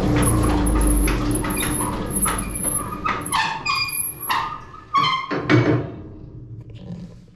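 Van Dale silo unloader's motor and blower running down, with several short high squeaks from the auger ends as it slows. The owner thinks the squeak comes from a dry bushing where the augers pass through the support.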